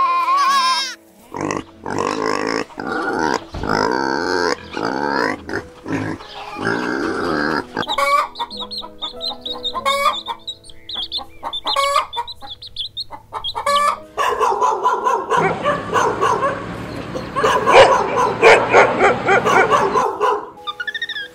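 Animal calls in short stretches over light background music, with different animals heard in turn; the loudest and roughest calls come in the last third.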